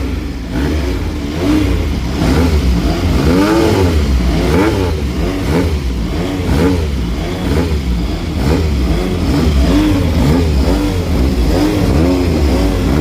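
Several motorcycle engines being revved hard at a standstill: repeated blips of the throttle, each rising and falling in pitch, overlapping one another over a steady running rumble.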